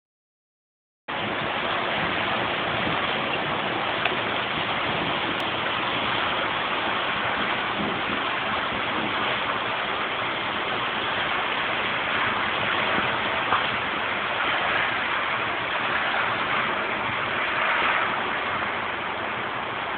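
A steady downpour of rain falling on wet pavement: a dense, even hiss that starts about a second in.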